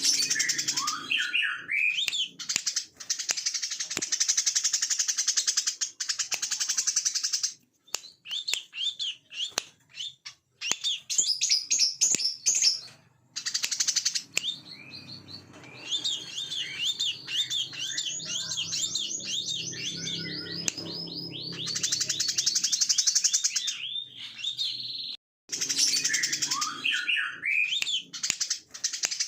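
Brown-throated sunbird singing: high chirps and long, rapid buzzing trills in phrases broken by short pauses, with the opening phrase recurring near the end.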